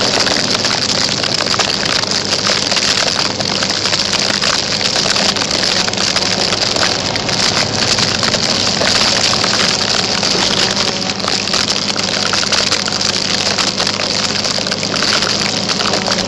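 Wet snow pelting the tape that holds a body-mounted camera, a loud, dense crackling rattle, over the low steady hum of the scooter's engine.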